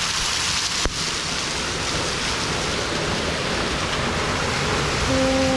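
Steady rushing of a waterfall, an even hiss with no rhythm. A sharp click about a second in, and a short falling tone begins near the end.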